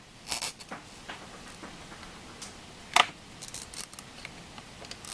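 Small clicks and snaps of a rubber fuel line being pulled off a chainsaw carburetor, with parts and tools handled on the bench. The sharpest snap comes about three seconds in.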